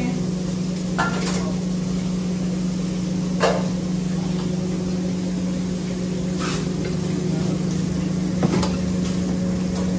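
Steady low machine hum of commercial kitchen equipment with a faint hiss, broken by a few sharp clinks of metal tongs against steel pans.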